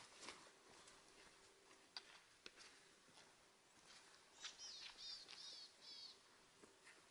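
Near silence outdoors, with a couple of faint ticks; about two thirds of the way in a small bird gives a quick run of about five high, downward-sliding chirps.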